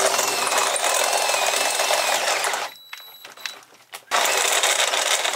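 Pneumatic air drill running a step bit through the school bus's sheet metal, in two runs: a loud stretch of about three seconds, a short pause, then a second run near the end.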